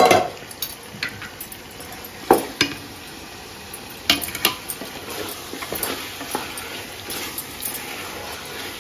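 Marinated chicken sizzling in hot oil and masala as it is stirred with a wooden spatula in a large aluminium pot, the spatula knocking sharply against the pot several times, loudest at the very start.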